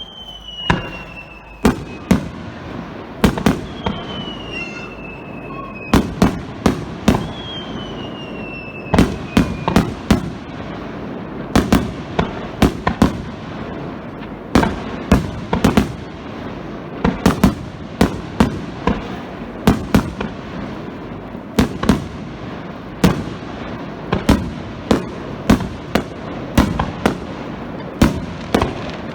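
Starmine fireworks barrage: a rapid series of shell bursts, several bangs a second, with three whistling shells falling in pitch in the first ten seconds.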